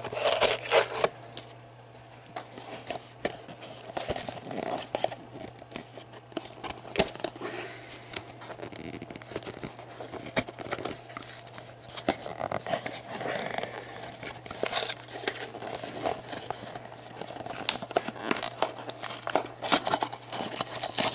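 Fingers picking at and tearing open the wrapping of a cardboard D&D Miniatures booster box: irregular tearing, crinkling and scratching, loudest in the first second.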